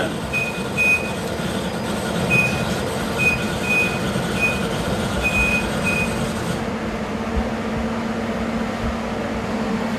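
An electro-discharge machine beeps in short, high, irregular pips for about the first six seconds, over a steady electrical hum. The beeps come with the tool having just touched the workpiece at the zero position, typical of an EDM contact signal.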